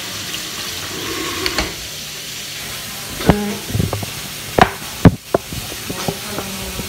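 Meat sizzling in a frying pan, a steady hiss throughout. Several sharp knocks and bumps come in the second half, the loudest about five seconds in.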